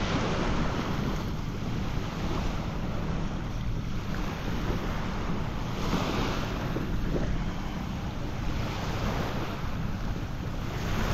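Small waves washing up and draining back on a sand-and-pebble beach, each wash swelling and fading every few seconds, with a steady low rumble of wind buffeting the microphone.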